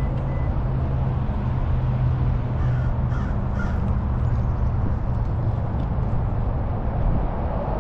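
A crow cawing several times in quick succession about three seconds in, over a steady low engine hum.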